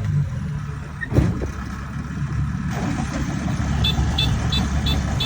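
Combine harvester's engine running steadily, with a single knock about a second in. From about four seconds in its reversing alarm starts beeping, about three high beeps a second, as the machine backs up to move to the next plot.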